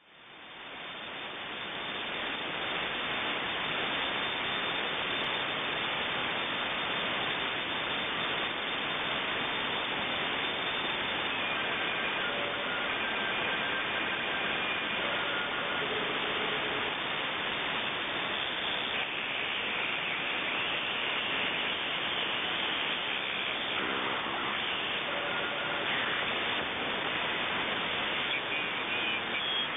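Shortwave radio static: a steady hiss that fades in over the first couple of seconds. Faint, brief tones show through the hiss now and then.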